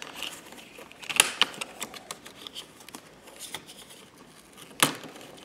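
Plastic card prying around a Dell E7440 laptop's screen bezel: scattered clicks and light scraping as the bezel's plastic clips pop loose, with the sharpest snap near the end.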